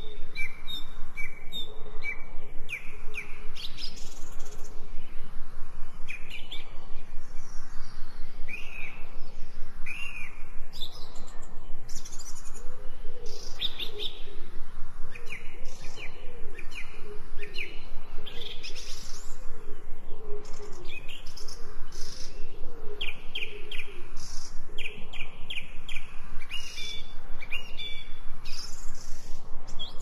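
A chorus of wild birds chirping and calling, with many short repeated notes and quick trills, and a lower wavering call underneath from about twelve to twenty-two seconds in. The mix is processed as 8D audio, so the sounds move around the listener.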